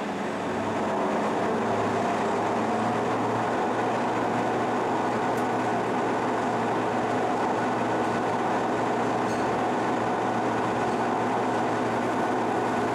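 The 96-inch faceplate table of a 1955 King 100-inch vertical turret lathe spinning at speed under its 75 hp AC drive: a steady machinery hum with several steady tones, which builds over the first second and then holds even.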